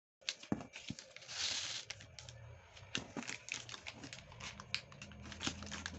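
A sheet of origami paper being folded and creased by hand: crinkling and sliding with many short sharp clicks of the paper, and a denser rustle about a second and a half in. A faint low hum comes in about two seconds in.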